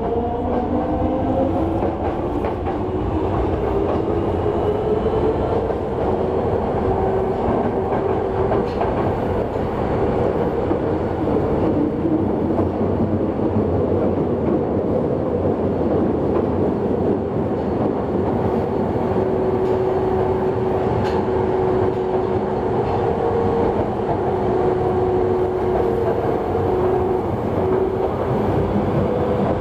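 Mitsubishi GTO-VVVF inverter and traction motors of a Yokohama Municipal Subway 3000A car, heard from inside the car under way. A whine rises in pitch over the first few seconds as the train gathers speed, then holds steady over the rolling wheel-and-rail noise.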